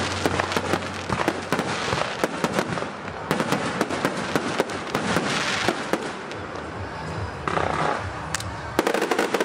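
Firecrackers and fireworks going off in a dense, rapid crackle of many sharp pops and louder bangs, without a break.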